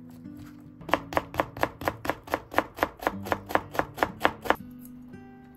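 Kitchen knife chopping leafy green stalks on a cutting board: quick, even strokes, about four a second, starting about a second in and stopping after about three and a half seconds.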